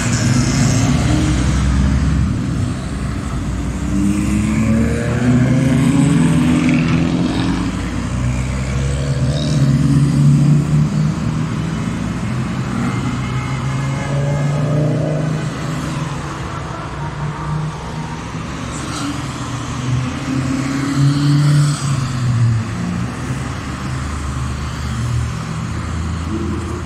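Cars driving past one after another, Fiat 500 Abarths with their turbocharged 1.4-litre four-cylinder engines among them. Each engine revs up and changes gear as it pulls away, in repeated rising sweeps.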